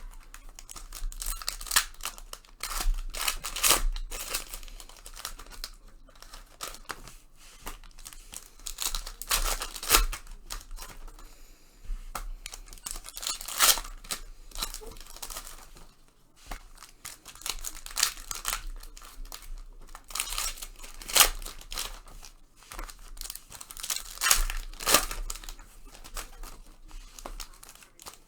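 Trading-card pack wrappers being torn open and crinkled, with irregular crackling and rustling and a louder rip every few seconds.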